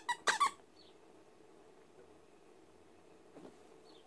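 A dog whining in a few short, high-pitched squeaks within the first half second, the first one falling in pitch. After that there is only faint room noise.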